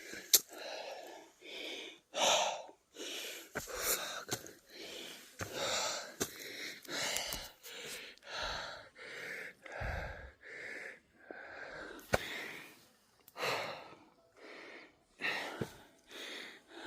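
A hiker's heavy, rasping breathing, in and out about one and a half times a second, as he climbs a steep mountain trail out of breath.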